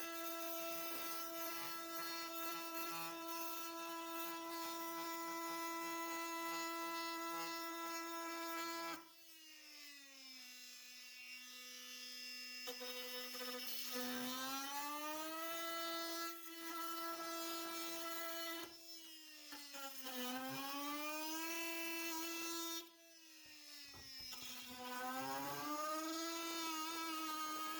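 Milwaukee M18 Fuel brushless oscillating multi-tool running a worn carbide blade through wood, a steady buzzing hum. Its pitch and loudness dip and recover several times.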